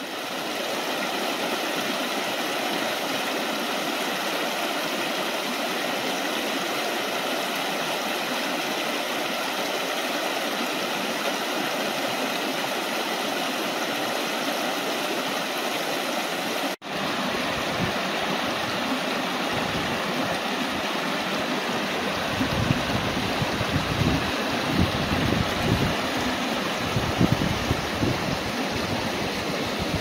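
Small rocky brook rushing and splashing over stones and a low cascade, a steady rush of water. A little over halfway through it cuts briefly, and in the later part low gusts of wind buffet the microphone over the water.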